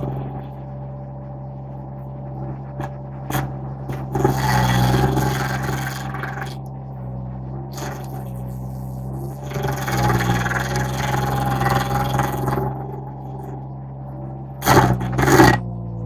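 Derette V1000 mini skid steer's engine running steadily while its stump grinder works a wood stump, with two longer stretches of louder, hissing grinding as the cutter wheel chews in. A few sharp knocks come near the end.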